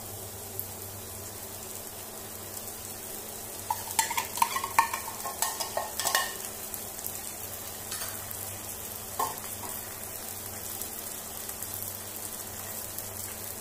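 Onion and garlic frying with a steady sizzle in a pan while canned baked beans in tomato sauce are spooned out of the tin into it; a metal spoon scrapes and clinks against the can for about two seconds starting around four seconds in, with one more clink a few seconds later.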